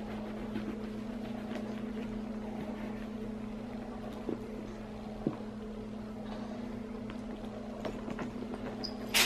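Steady low hum of the motor of a Rock 'n Play baby sleeper, with a couple of faint soft knocks, and a short, louder burst of rustling near the end.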